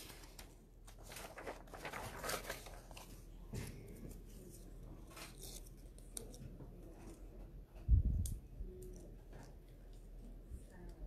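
Faint paper rustling and small crackly tears of backing paper being peeled off foam tape strips on a small paper piece, with a single dull low thump about eight seconds in.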